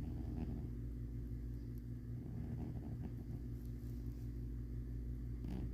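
A sleeping domestic cat purring: a steady, low rumble.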